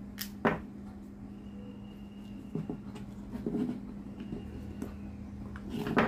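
Clicks and knocks of a small plastic switch housing being handled and taken apart with a screwdriver, with a screwdriver set down on a stone workbench near the end, over a steady low hum. The loudest knocks come about half a second in and near the end.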